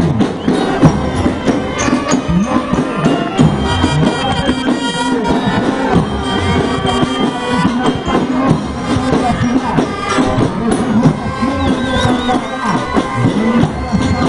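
Marching band of brass and drums playing steadily.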